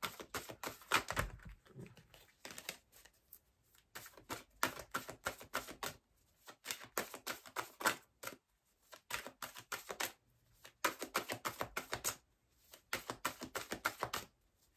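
A deck of oracle cards being shuffled by hand: runs of quick clicks with short pauses between.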